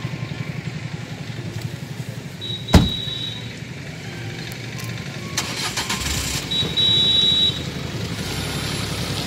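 Renault Duster: the driver's door shuts once with a sharp thump about three seconds in, over a low engine rumble; from about six seconds in the engine note grows louder and deeper as the car's engine starts up.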